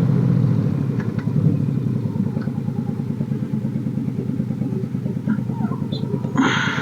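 Motorcycle engine idling with an even, steady pulsing beat. A short hiss cuts in near the end.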